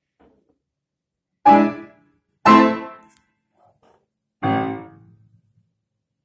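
Upright piano: three full chords struck, the first about a second and a half in, the next a second later, the last about two seconds after that, each ringing out and fading. They close the piece.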